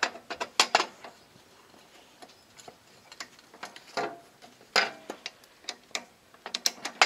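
A nut being worked onto a bolt on a steel bracket with a hand tool: irregular sharp metal clicks in short clusters, the busiest near the end.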